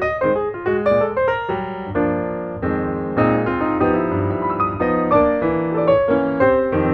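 Piano music: quick runs of notes, with longer held chords in the middle.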